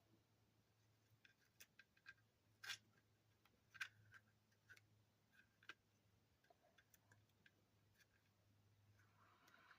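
Near silence with scattered faint clicks and taps from hands working adhesive grip tape onto a polymer pistol frame, over a faint low hum.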